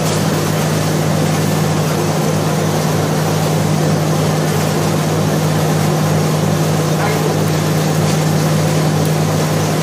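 Yanmar RHS40DL rice huller running steadily, a strong even hum under a dense mechanical rush.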